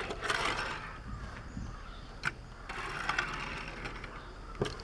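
Hot Wheels Baja Bone Shaker die-cast toy car rolling on a hard surface, its big knobby plastic tires giving a rolling noise, with two sharp clicks, one about halfway through and one near the end.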